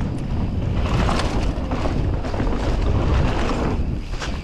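Wind buffeting the microphone of a camera on a mountain bike moving fast downhill, a loud steady rumble with scattered knocks from the trail.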